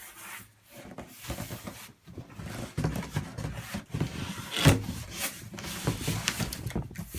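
A large cardboard box being handled and shifted by hand: irregular scraping and rubbing of cardboard with a few dull knocks, the sharpest about four and a half seconds in.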